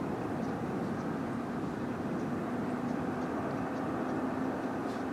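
Steady distant vehicle noise with a low droning tone that grows a little stronger over the last few seconds, and a few faint high ticks.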